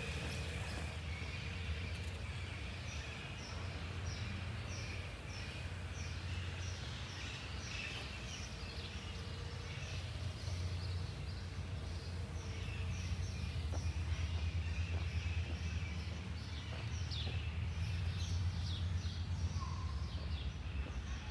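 A songbird calling a short, downward-sliding chirp over and over, a little under twice a second, above a steady low outdoor rumble.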